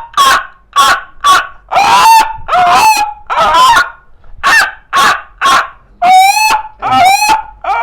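A man imitating an animal with his voice: a string of about a dozen short, loud calls with gaps between them, a few drawn out longer with a wavering pitch.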